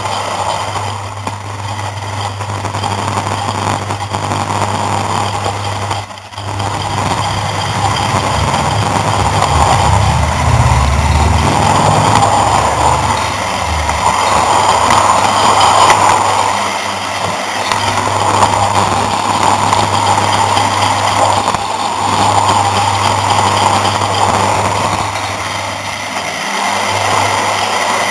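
Hornby OO-gauge Class 153 model train running along its track, its motor whirring and its wheels rolling on the rails, heard close up from a mini camera riding on board. The running noise swells and eases every few seconds over a steady low hum, and dips briefly about six seconds in.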